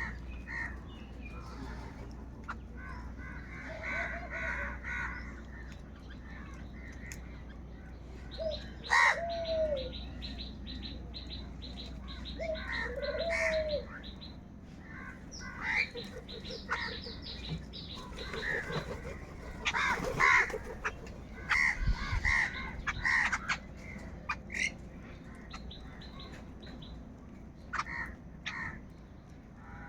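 Crows cawing: several birds calling in scattered, harsh bouts, thickest in the second half, with a few sharper, higher calls mixed in.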